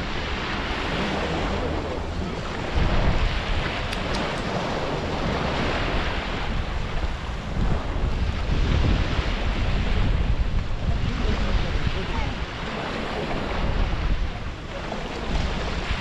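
Small sea waves breaking and washing up onto a sandy shore, swelling and fading every few seconds. Wind rumbles on the microphone throughout.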